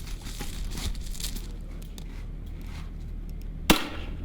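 Light clicks and rattles of gear being handled, then a single sharp gunshot about three and a half seconds in, by far the loudest sound.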